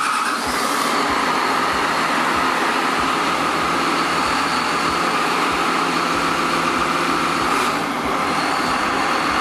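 6.7L Cummins diesel built for 2.6 smooth bore truck pulling, running steadily on an engine dyno with a steady whine over the engine noise. About eight seconds in there is a brief hiss and the whine shifts slightly higher.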